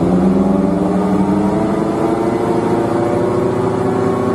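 Inside a Hyundai Yuedong (Elantra) car at about 40 km/h, a worn wheel bearing drones with road noise. The hum rises slowly in pitch as the car gains speed. The bearing is noisy because it has run short of grease, and the noise grows louder the faster the car goes.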